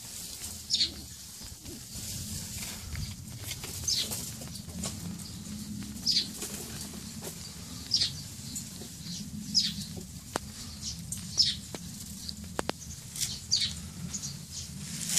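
Birds in a bamboo grove calling over and over: short, high, falling calls, one every couple of seconds, over a steady low rumble.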